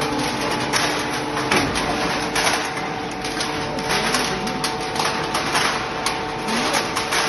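Hydraulic aluminium-can baler running: a steady hum with irregular clattering knocks of metal throughout.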